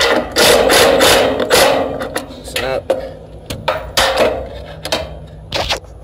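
Cordless impact driver run in bursts, one long burst at the start and then several short ones, loosening the blower motor's mounting bolts to slacken a belt that is too tight.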